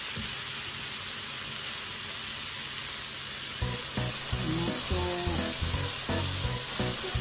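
Pork belly and marinated chicken sizzling steadily on the hot plate of an electric tabletop grill, a fine frying hiss.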